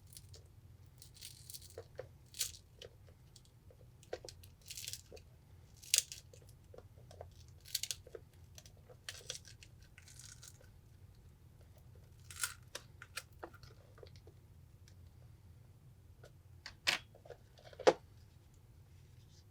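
Shattered glass digitizer of a Samsung Galaxy Tab 4 being pried off with a metal spudger: scattered crackles and short scrapes as cracked glass and softened adhesive let go, with two sharp snaps near the end.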